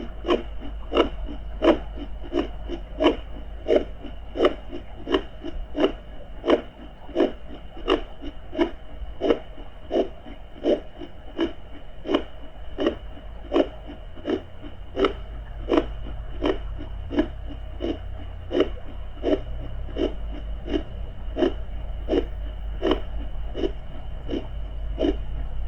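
Recorded heartbeat in a regular lub-dub rhythm, a little under one and a half beats a second, mixed with fetal Doppler audio. It sits over a steady low underwater-style rumble and a faint steady high tone.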